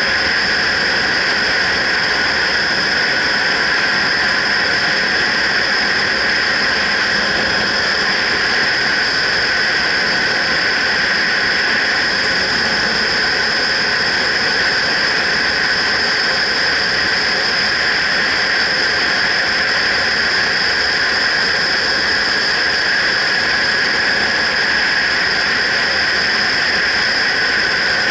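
Steady wind rush over a helmet-mounted action camera on a motorcycle at road speed, with a constant high whistle running through it.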